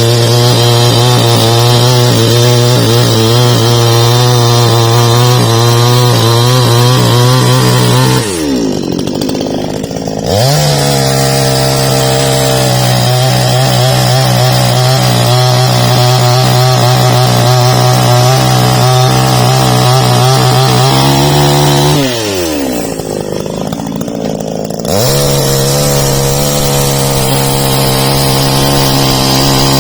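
Husqvarna two-stroke chainsaw running at full throttle while cutting a tree. Twice, about eight seconds in and again about twenty-two seconds in, the throttle is let off and the engine drops to idle for two to three seconds before revving back up.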